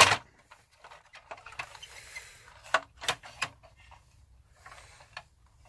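Hard plastic clicks and knocks from a 1980s MB Bigtrak's plastic gearbox housing and chassis being handled and worked loose. A sharp knock at the start, then scattered clicks, three of them close together about three seconds in.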